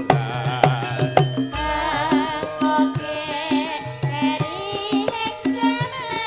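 Javanese gamelan playing a gendhing for a tayub-style dance. The metallophones repeat a steady pulsing pattern under kendang drum strokes, and a singing voice with a wavering vibrato joins about a second and a half in.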